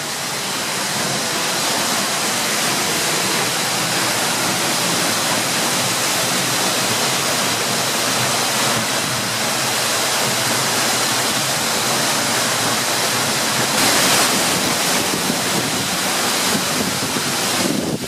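Seljalandsfoss, a 60-metre waterfall, heard from behind its falling curtain of water: a steady, loud rush of water.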